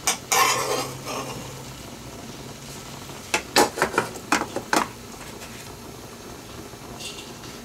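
Metal spoon scraping and clinking against a frying pan and a bowl as browned ground meat is scooped out. A scrape comes just after the start, and a quick run of sharp clinks about three and a half to five seconds in.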